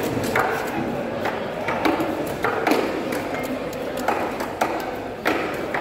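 Fish market bustle: background voices with irregular sharp knocks and clacks, roughly one every half second to second.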